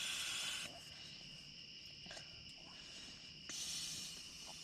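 Steady high-pitched chirring of crickets, with two short spells of hissing, rustling noise over it, one right at the start and one about three and a half seconds in.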